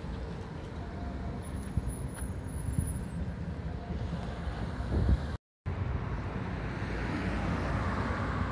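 Street traffic: a small delivery van driving past, over a steady low rumble of wind on the microphone. The sound cuts out completely for a moment about halfway through, then a passing-vehicle noise swells toward the end.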